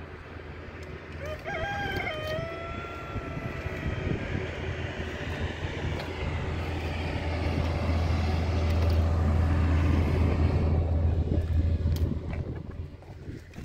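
A rooster crows once, about a second and a half in. Under it a low engine drone grows louder, is loudest past the middle, and drops away near the end.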